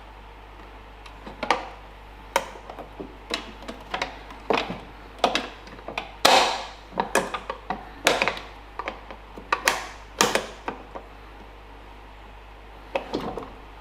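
Irregular clicks, knocks and short scrapes of plastic and metal parts being handled and pushed into place on a lawnmower's handle height-adjustment mechanism, with the longest and loudest scrape about six seconds in.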